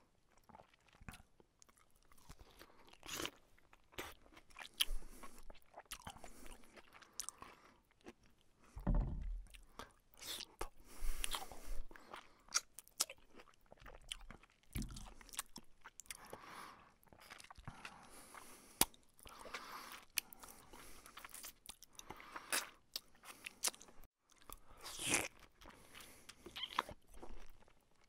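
Close-up eating sounds of rice and fried fish taken by hand: chewing, crunching and wet mouth clicks in an irregular run. A dull thump stands out about nine seconds in, with a smaller one a few seconds later.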